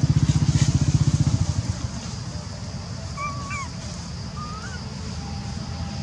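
Motorcycle engine running with a steady low pulsing beat, loud for about a second and a half, then falling away to a lower rumble. A few short, high, wavering squeaks come around the middle.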